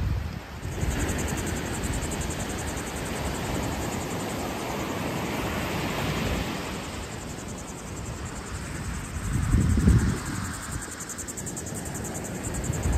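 Waves breaking on a beach, with wind buffeting the microphone in low rumbles, the strongest gust about ten seconds in. A faint, high, evenly pulsing insect buzz runs through much of it.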